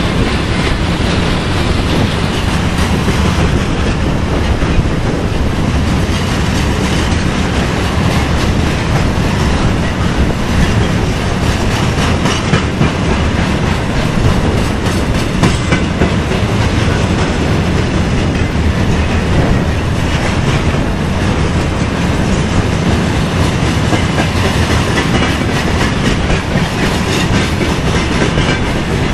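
Freight train of railway tank cars rolling past, loud and steady, its wheels clattering over the rail joints.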